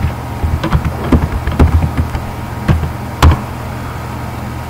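Computer keyboard typing: about a dozen quick, irregular key clicks, ending in one louder keystroke a little past three seconds in. A steady low hum runs underneath.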